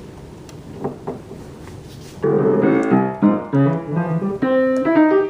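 Yamaha piano being played, a run of notes and chords starting suddenly about two seconds in after faint room noise with a few soft clicks.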